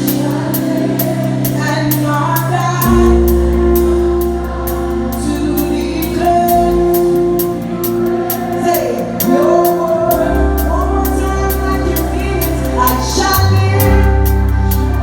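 Live gospel church music: singing over sustained bass notes that change every few seconds, with a steady beat running underneath.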